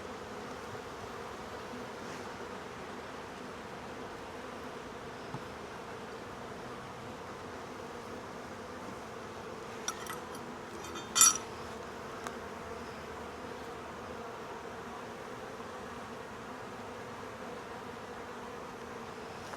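Honeybees humming steadily around an open hive. A few short knocks cut in around ten to twelve seconds in, the loudest about eleven seconds in.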